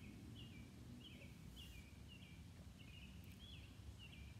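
Near silence with faint, repeated high chirps, about two a second, each stepping down in pitch, over a low background rumble.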